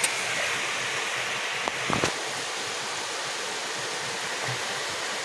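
Steady hiss of heavy rain falling, with a short knock about two seconds in.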